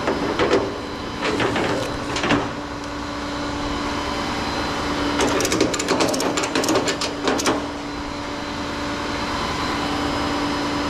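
Tow truck running with a steady hum, while loose metal rattles and clinks in several short bursts, the longest a run of quick clicks about five to seven and a half seconds in.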